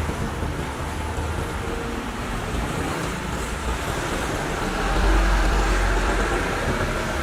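Heavy diesel construction machinery running steadily, with a louder deep rumble swelling from about five seconds in to near the end.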